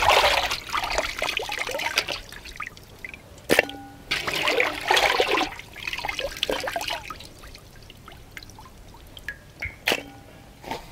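Water trickling and splashing back into an aluminium pot as handfuls of raw chicken are squeezed out after washing. It comes in bursts of a second or two, fainter near the end, with a couple of sharp knocks.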